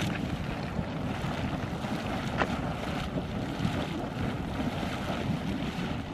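Minute Geyser erupting: a steady splashing and hissing of hot water and steam from its vent, under a heavy rumble of wind on the microphone.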